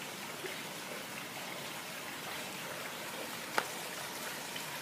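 Steady hiss like running water, with one sharp click about three and a half seconds in.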